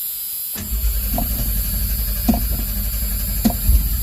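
1985 Ford Ranger engine cranking on its starter from about half a second in, with a fast even pulsing and a few sharp pops, slow to fire because the truck has not run in quite a while.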